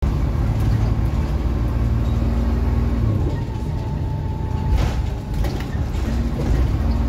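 Diesel engine and running noise of a double-decker bus, heard from the upper deck. The engine hum is steady, drops and wavers about halfway, then settles back. A faint whine comes through in the middle.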